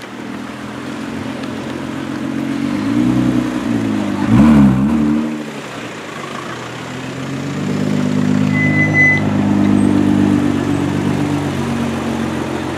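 Liberty Walk-tuned Nissan GT-R's twin-turbo V6 with Akrapovič exhaust running at low speed, revved up and down a couple of times about three to five seconds in, loudest on the second rev. It then settles into a steady, fuller drone as the car drives slowly on.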